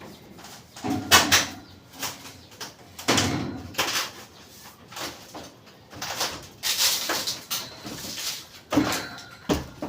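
A run of irregular knocks, bangs and scraping clatter, with short gaps between them.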